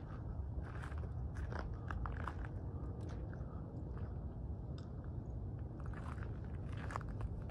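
Footsteps crunching on gravel, a few irregular steps each second, over a steady low rumble.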